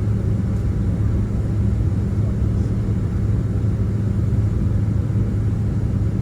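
Steady low rumble of a Boeing 767-300ER airliner heard from inside the passenger cabin, even throughout with no sudden sounds.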